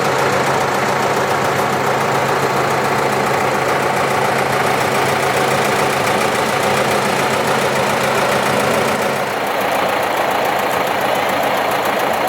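Engine running steadily, with a knocking, idling character; its tone shifts about nine seconds in.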